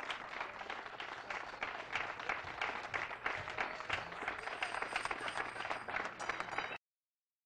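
Audience applause, many hands clapping together, which cuts off abruptly near the end into dead silence.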